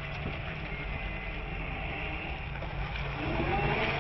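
A vehicle running with steady rumble and road or wind noise. About three seconds in, a rising whine sets in as it speeds up.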